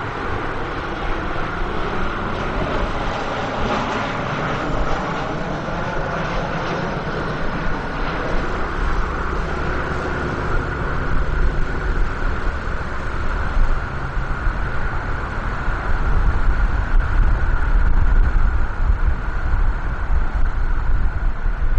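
Boeing 737-700 jet engines running on final approach: a steady whine over a broad rushing noise, with a low rumble that grows louder in the last few seconds as the airliner comes down to the runway.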